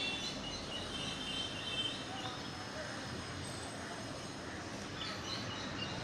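Steady background noise with faint high chirps now and then, in the first second and a half and again near the end.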